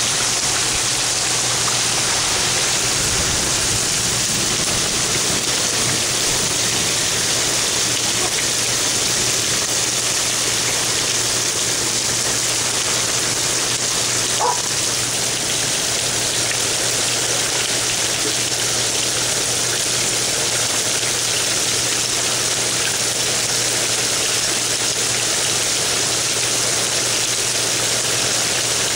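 Heavy rain pouring down in strong wind, a steady, even rush of noise. A single brief sharp sound cuts through about halfway.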